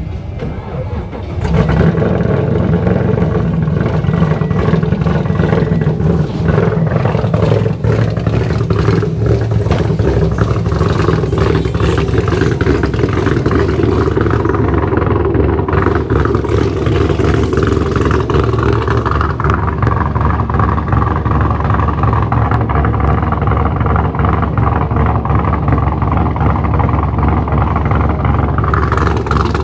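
A car engine running loudly, starting about a second and a half in and holding fairly steady.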